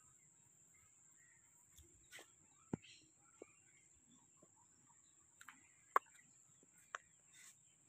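Quiet sounds of horses feeding at a concrete trough: a few short sharp clicks and knocks, with soft rustles in between. A steady high whine runs underneath.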